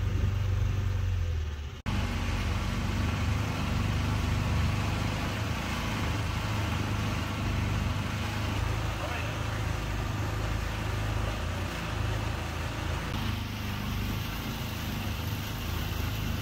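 Small tour boat's motor running steadily as the boat cruises along, a low even hum under a wash of noise. The sound cuts out for a moment about two seconds in and then carries on as before.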